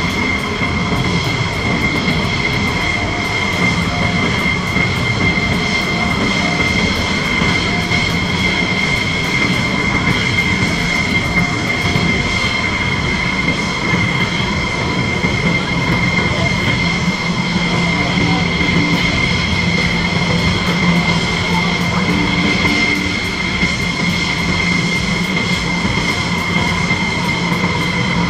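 Jet engines of several parked F-16 Fighting Falcons idling: a steady, loud high-pitched whine over a constant rushing noise.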